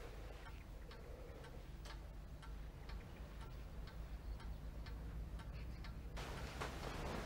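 Clock ticking steadily, about two ticks a second, over a low hum. A rush of noise comes in about six seconds in.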